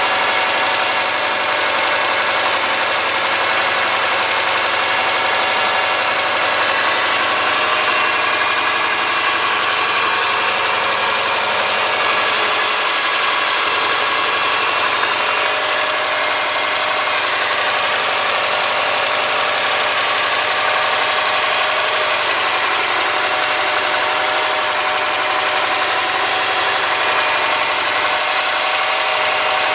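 2003 Subaru Forester's flat-four engine idling steadily while warming up from a cold start, with a tick from the driver side of the engine. The tick comes from excessive clearance on the driver-side front cylinder's exhaust valve, about .029 in instead of about .010.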